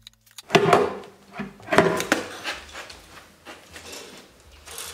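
Aluminium charger/DC junction box housing of a Nissan Leaf being worked free and lifted straight up off the inverter and its alignment pins. There are several loud metal clunks and scrapes, the biggest about half a second and two seconds in, with lighter knocks after.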